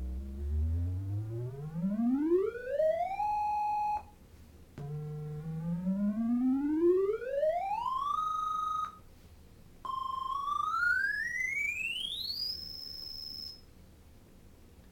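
Prism laser synth guitar playing three rising pitch sweeps: an electronic tone with overtones glides steadily up and holds at the top, then cuts off. Each sweep starts higher than the last, and the third climbs to a very high pitch.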